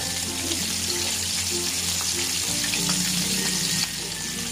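Chicken wings deep-frying in plenty of hot oil in a pan: a steady sizzle with scattered crackles, easing slightly near the end.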